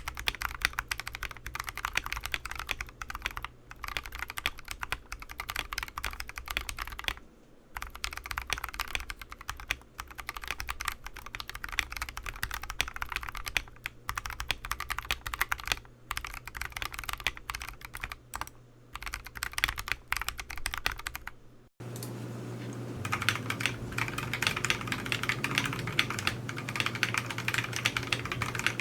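Typing on a wooden-cased TADA68 mechanical keyboard fitted with lubed Durock T1 62g tactile switches with Gateron Milky housing tops: a steady run of keystroke clacks with brief pauses. About two-thirds through, the sound changes abruptly to a more distant pickup through the camera's internal microphone, with a steady low hum under the typing.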